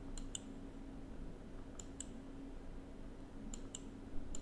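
Three pairs of faint, sharp computer-mouse clicks, about a second and a half apart, over quiet room tone with a faint steady low hum.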